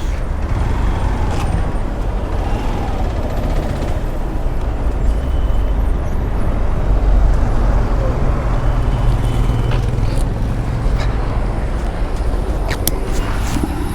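Hero Xpulse 200's single-cylinder engine running, heard as a steady low rumble with wind and road noise, and a couple of sharp clicks near the end.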